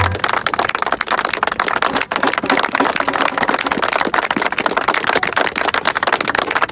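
Crowd clapping: a dense, irregular patter of many hands.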